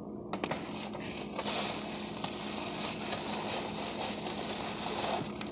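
Phone handling noise: clothing rustling against the microphone, with a few sharp clicks near the start, over a steady low hum.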